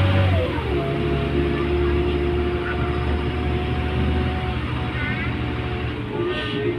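Güleryüz Cobra GD-272 city bus running under way; its engine note falls about half a second in, then settles into a steady hum with a thin whine.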